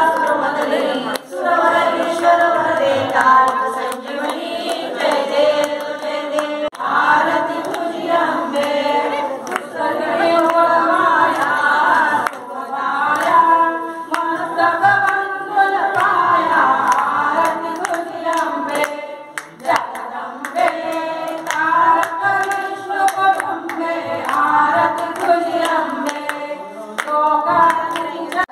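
A group of women singing a devotional song together, with hand claps keeping time.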